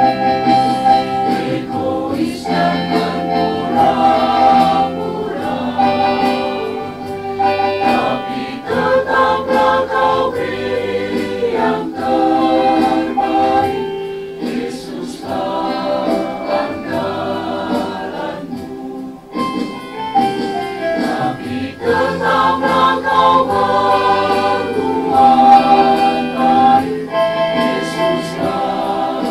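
A small mixed choir of women and men singing a hymn in parts, over instrumental accompaniment with sustained bass notes; the singing pauses briefly between phrases.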